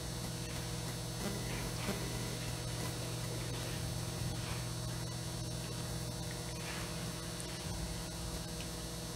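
Steady low electrical mains hum with faint room noise and no speech.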